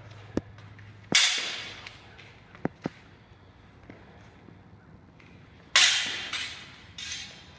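Practice longsword blades clashing during zornhau strikes: two loud sharp clashes, about a second in and near six seconds, each trailing off in a short bright scraping ring as the blades slide in the bind, a smaller clash soon after the second, and a few light clicks and knocks between.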